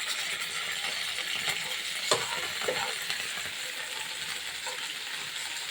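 Beef tenderloin steak sizzling in a pan as it is seared, with a single sharp tap about two seconds in.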